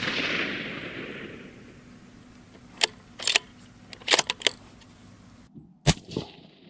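The report of a Ruger American Predator .243 bolt-action rifle shot rolling away, then the bolt worked with several sharp metallic clicks, and another rifle shot near the end.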